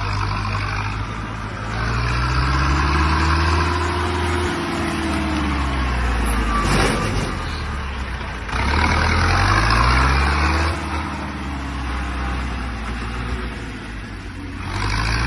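Zetor 7211 tractor's four-cylinder diesel engine being driven through a slalom. It revs up and drops back twice, about two seconds in and again about nine seconds in, between stretches of steadier running.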